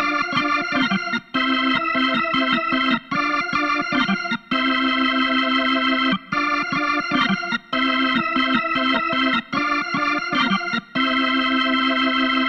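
Music: sustained electronic organ chords, held in phrases of one to two seconds with short breaks between them.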